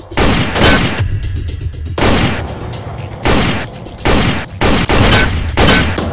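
A string of pistol shots, each a sharp crack with a trailing echo, coming about half a second to a second apart.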